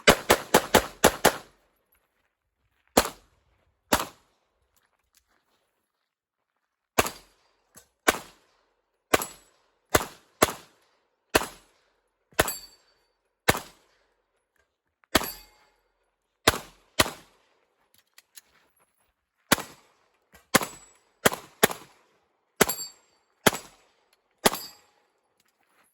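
9mm Glock 17 Gen 5 pistol shots. There is a fast run of about six in the first second and a half, then single shots and quick pairs roughly a second apart.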